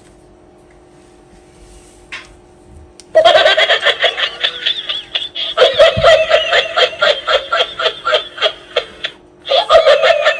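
Interactive toy dog playing a recorded giggling laugh through its small speaker. It starts about three seconds in, breaks off briefly near the end, then starts again.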